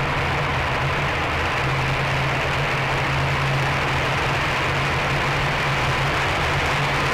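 Engineless soapbox car rolling fast downhill on tarmac: a steady rush of wind over the microphone and road rumble from the wheels, with a low steady drone underneath.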